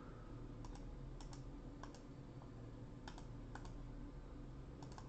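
Faint, scattered clicks on a computer keyboard, several in quick pairs, over a steady low hum.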